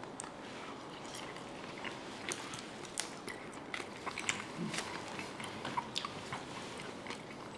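A person chewing and eating fried young potatoes close to the microphone: soft, irregular mouth clicks and small crunches.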